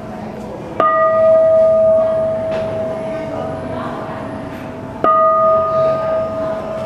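A bowl-shaped altar bell is struck twice, about four seconds apart. Each strike rings on in one steady tone with a few higher overtones and slowly dies away.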